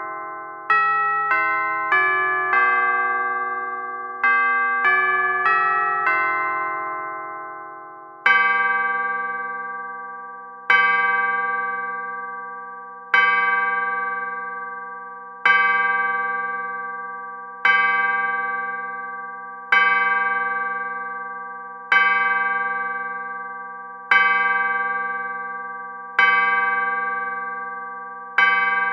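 Chiming clock: a short melody of bell notes, then a single deeper bell striking slowly and evenly, ten times, as if counting the hour. Each strike rings out and fades before the next.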